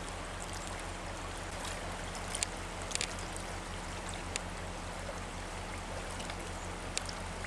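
Creek water running steadily, with a few faint clicks and a low steady hum underneath.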